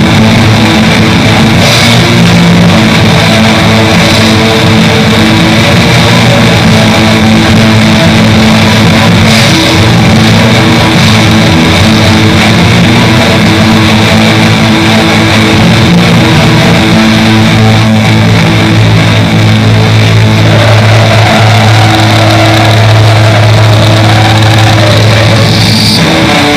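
Raw black metal: a loud, dense wall of heavily distorted electric guitar, bass and drums playing without a break.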